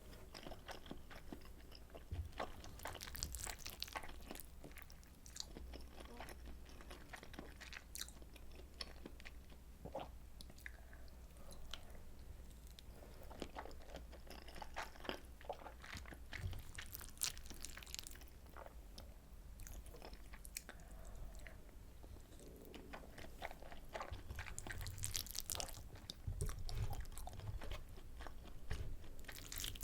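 Close-miked chewing of soy sauce butter egg rice, with many small sharp mouth clicks and bites throughout.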